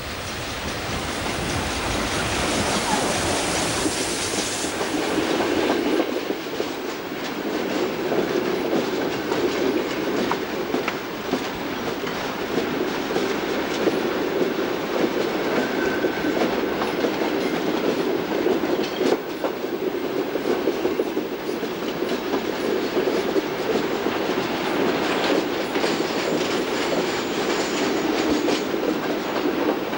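Freight wagons of a steam-hauled goods train rolling steadily past, with a continuous rumble and the clickety-clack of wheels over rail joints. A broad hiss runs over the first few seconds and stops suddenly.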